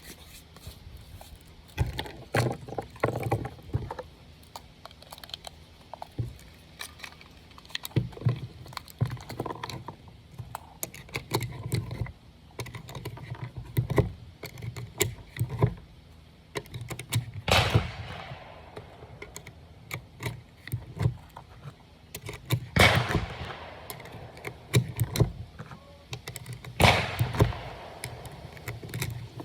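Gunshots at a shooting range: three sharp reports with echoing tails, several seconds apart, in the second half, over a steady run of small metallic clicks and knocks from handling the gun and ammunition.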